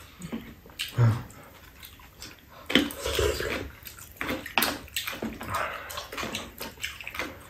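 Two people eating kalguksu noodle soup and porridge: wet slurping and sipping from spoons, with spoons scraping in the bowls and chewing, in irregular bursts.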